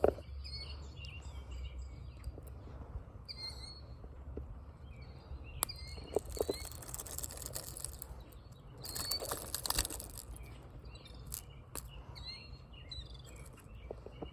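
Small birds chirping now and then, over a steady low rumble, with a few short bursts of rustling and clicking.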